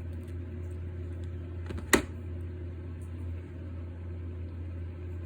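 A single sharp click about two seconds in as linesman's pliers crimp down on an electrical terminal, over a steady low hum.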